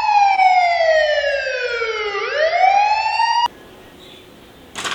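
Police-style siren wail: one slow falling sweep, then a rising sweep, cut off abruptly about three and a half seconds in.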